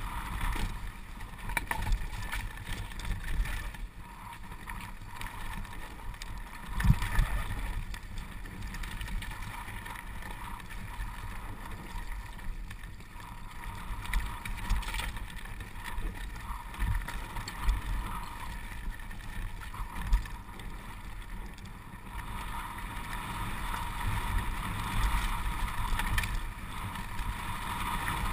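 Downhill mountain bike rolling fast over a dirt and rock trail: steady wind rush and rumble on the action-camera microphone, with the rattle of the bike over rough ground and scattered knocks from hits on rocks, the sharpest about seven seconds in.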